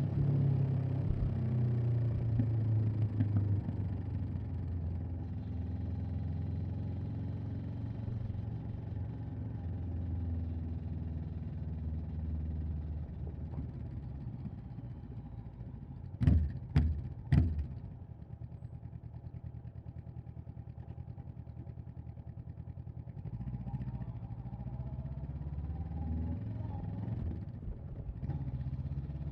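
Honda CB500X's parallel-twin engine running under way, revs falling in the first seconds. A little past halfway come three sharp knocks, the loudest sounds here; then the engine runs low and slow before the revs climb again near the end.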